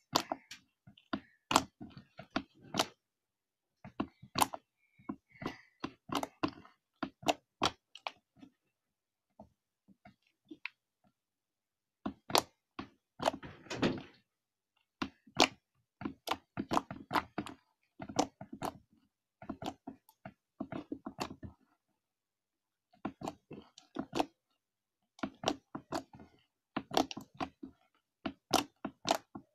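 Slime being kneaded and folded by hand, giving irregular clusters of sharp clicks and pops, with a few short pauses.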